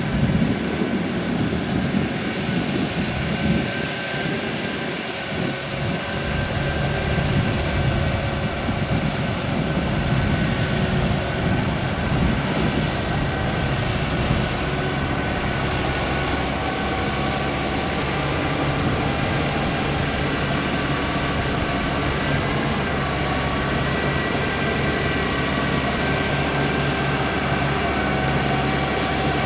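A crawler rotary tiller's Kubota DC95 diesel engine runs steadily under load as the machine tills wet paddy mud. The engine note holds even throughout.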